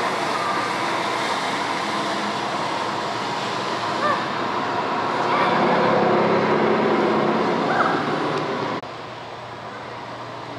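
Steady, loud rumbling rush of the mock flight deck's sound effects played over speakers, with a few brief faint high chirps over it; the noise drops abruptly about nine seconds in.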